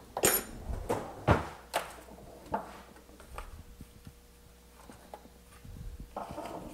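A few sharp knocks and clicks in the first three seconds, then lighter ticks and a faint steady hum.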